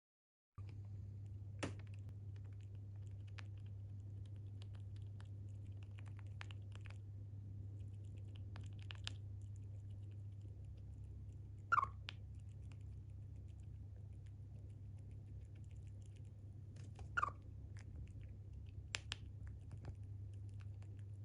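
Pet Siberian chipmunk eating: a scatter of small, quick nibbling clicks, with two short, louder calls falling in pitch about 12 and 17 seconds in, over a steady low hum.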